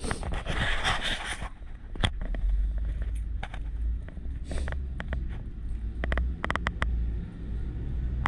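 Sinnis Hoodlum motorcycle with a Toro exhaust running at a steady low exhaust note. A rush of noise fills the first second and a half, and sharp clicks come here and there.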